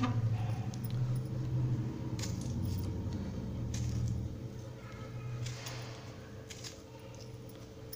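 Low handling rumble with a few light clicks and metallic clinks as a tomato is cut by hand with a small knife over a steel bowl. The rumble is strongest in the first half and eases off after about five seconds.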